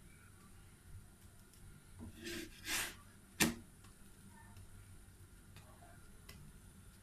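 Wooden spatula working a pita bread on a flat pan: a short scraping rustle about two seconds in, then a single sharp knock of the spatula against the pan.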